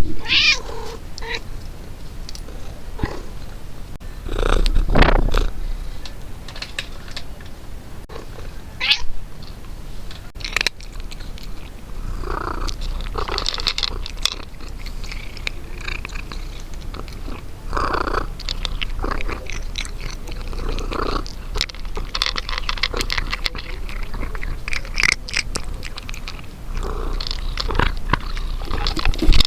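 A cat eating, chewing its food with many small clicking chews and a few louder bursts every few seconds.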